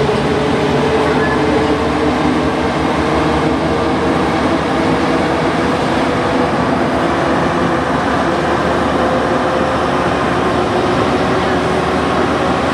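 Alstom NS-93 metro train running through a tunnel, heard from the driver's cab: a steady, loud running noise with a whine that rises slowly in pitch during the first half.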